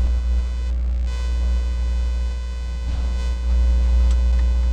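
Steady low electrical hum with a buzz above it, unchanging throughout, and a faint click about four seconds in.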